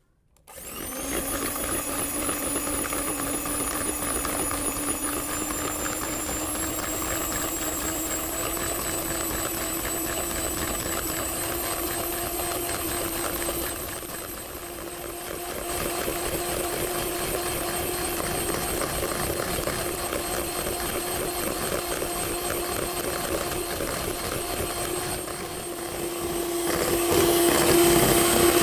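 A small electric motor appliance switched on, spinning up with a quick rising whine and then running steadily. It dips briefly twice and runs louder near the end.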